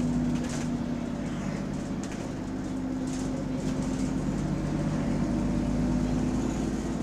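A London bus's diesel engine running with a steady drone, its sound coloured by an exhaust leak.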